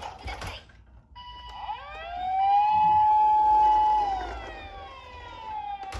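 A wailing siren: after a brief lull it rises over about a second, holds at its loudest through the middle, then slowly falls away near the end, with several fainter siren tones sliding over one another.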